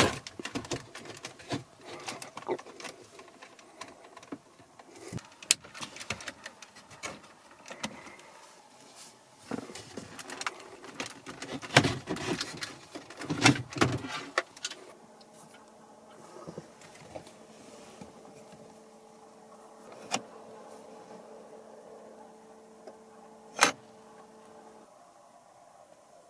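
Plastic clicks, knocks and rattles as a Mercedes Audio 20 head unit and its dash trim are handled and slid out of the dashboard. After about 15 s this gives way to a faint steady hum, with one sharp click near the end.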